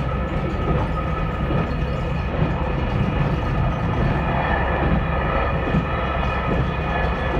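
Diesel railcar running along snowy track, heard from inside the cab: a steady low rumble of engine and wheels on the rails with a faint, even whine over it.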